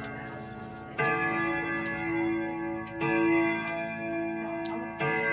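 Hermle 1161-853 grandfather clock movement striking on its chime rods: single strokes about two seconds apart, each ringing on until the next, with the clock ticking underneath.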